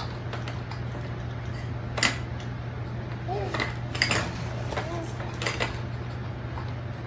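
Hard plastic baby toys knocking and clacking on a baby jumper's tray as the baby handles them: a few sharp knocks, about two, four and five and a half seconds in. Faint short baby coos come between them.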